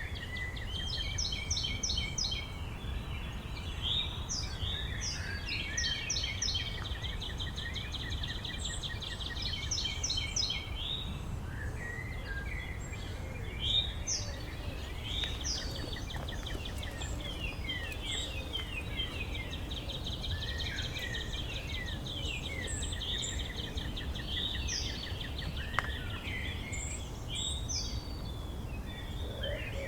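Several songbirds singing and calling together in a forest chorus: rapid repeated trills, short chirps and whistled notes from more than one bird, over a steady low rumble.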